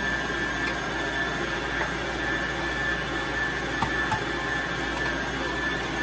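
Electric stand mixer running steadily with a whisk attachment, beating the punch de crème mixture, with a constant whine over its motor hum. A couple of sharp metallic clicks about four seconds in come from a kitchen knife punching into the top of a milk tin.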